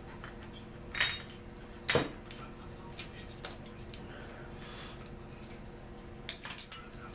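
Metal hand tools clinking and knocking against the small two-stroke engine's crankcase as it is taken apart: a sharp knock about one second in, another about two seconds in, a lighter click later, and a quick run of clinks near the end, over a faint steady hum.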